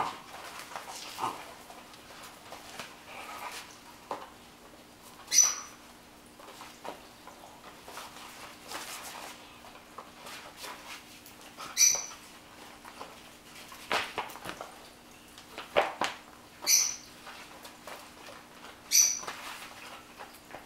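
Puppy bite work with a leather bite rag: scuffling, rag flapping and paws on a hard floor. Five or six short, high-pitched squeaks come a few seconds apart, and several sharp knocks fall in the second half.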